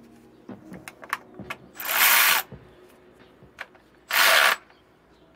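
Cordless Milwaukee electric ratchet running in two short bursts, about two seconds apart, as it snugs E-Torx bolts on a transmission pan, with light clicks of the socket being fitted onto the bolts between runs.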